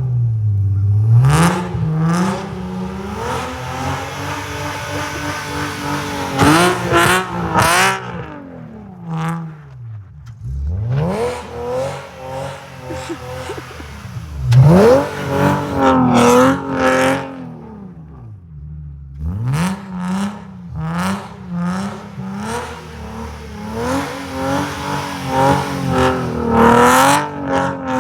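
Infiniti Q50's engine breathing through a full Tomei exhaust and PPE long-tube headers, revved repeatedly: pitch climbs and falls back several times, with quick blips and returns to a low idle between the pulls.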